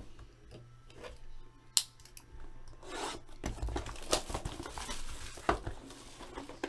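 Cellophane shrink-wrap being torn and peeled off a cardboard box of trading cards: crinkling and rustling plastic with a few sharp clicks.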